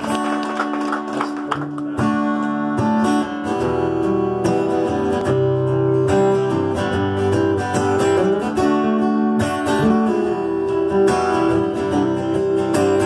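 Two acoustic guitars strummed together in an instrumental passage, with steady chord changes and no singing.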